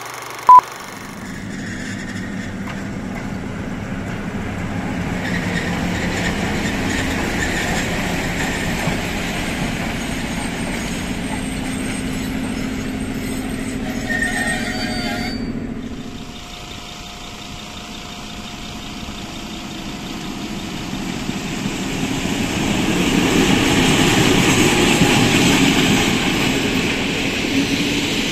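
Diesel locomotive engine running steadily as it hauls a train of passenger carriages. Later the train passes close by, and its engine and rolling wheels grow louder near the end.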